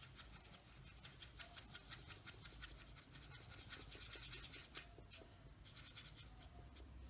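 Faint scratching of a Stampin' Blends alcohol marker tip on cardstock in many short, quick strokes as the ink is blended.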